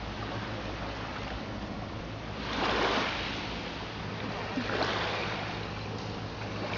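Sea waves washing in, with two louder surges a couple of seconds apart over a steady low hum.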